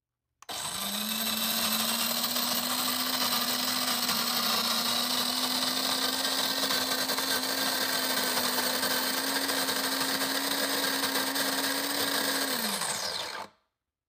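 Cuisinart electric burr coffee grinder grinding coffee beans at a medium setting on a timed four-cup cycle: a steady motor hum with grinding noise. It starts about half a second in and winds down with a falling pitch near the end as the cycle finishes.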